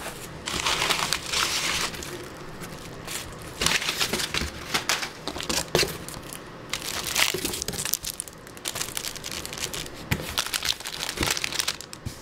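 Packing paper and plastic wrapping crinkling and rustling in irregular bursts, with sharp crackles, as hands dig through a cardboard shipping box and lift out plastic-wrapped items.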